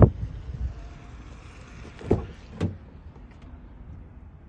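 2022 Hyundai Tucson's car door shutting with a loud thump, followed about two seconds later by two duller, lighter knocks from the car's body or doors.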